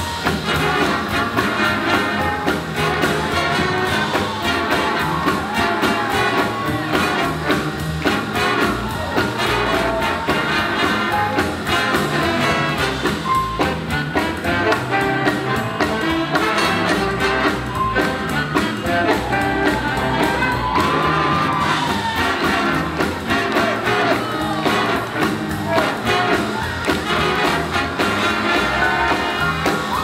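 Live big band playing up-tempo swing jazz, with brass and saxophones over a steady drum beat.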